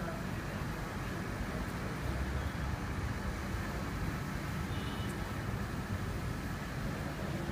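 Steady outdoor background noise with a low rumble, and no distinct events.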